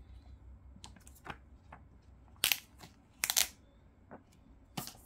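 Product packaging being handled and opened: a handful of short, sharp rustles and scrapes, the loudest two about two and a half and three and a half seconds in.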